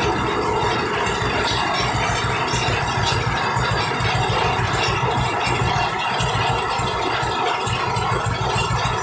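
1935 John Deere Type W two-cylinder power unit running steadily, its firing beating as an even low pulse, with a few light clanks. The saw is not cutting.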